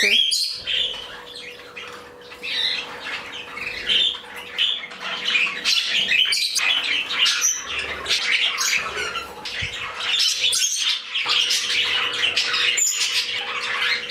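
Several budgerigars chattering and warbling without a break, a dense stream of quick chirps broken by sharper squawks.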